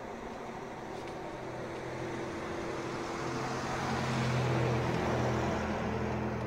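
A motor vehicle driving past, its engine hum and road noise growing steadily louder to a peak about four to five seconds in, then starting to fade near the end.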